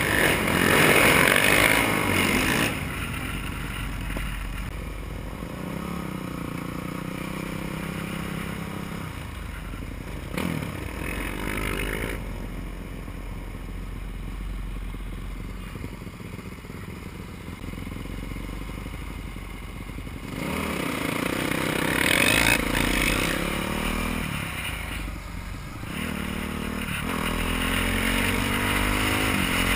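Motorcycle engine heard from the bike, with wind on the microphone: riding at first, then slowing to a steady idle for most of the middle, then pulling away and accelerating with rising revs, a short dip at a gear change, and rising again near the end.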